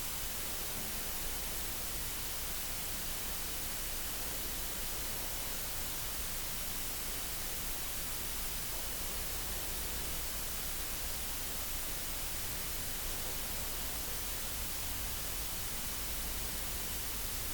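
Steady, even hiss of room tone, with no distinct event standing out.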